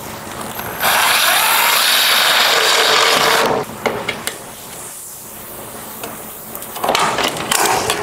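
Cordless drill boring a hole through the steel patch panel and roof for a cleco fastener, running steadily for about two and a half seconds from about a second in. A couple of clicks follow as a cleco is set with cleco pliers, and there is a second, shorter burst of noise near the end.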